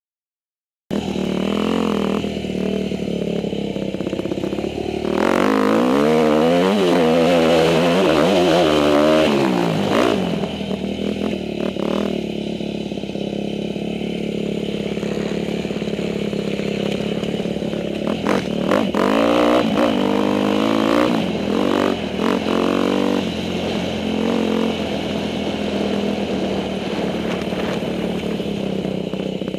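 Dirt bike engine at helmet-camera range, starting about a second in and revving up and down repeatedly as the bike is ridden along a trail, with the pitch climbing and falling several times in the middle and again about twenty seconds in.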